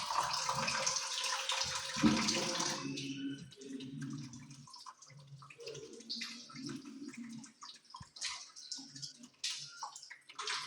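Water running over hands being washed, stopping about three seconds in; after that, small drips and splashes with faint low voices.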